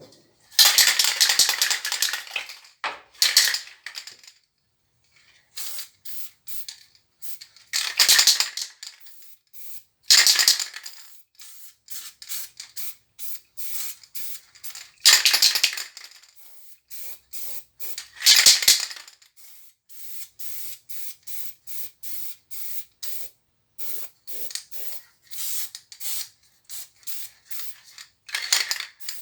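Aerosol can of black spray paint spraying, several long hisses of a second or two each with many short spritzes between them.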